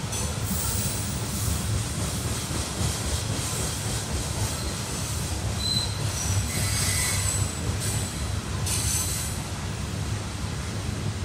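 Freight train passing out of sight: a steady low rumble of the cars on the rails, with high-pitched wheel squeals coming and going several times.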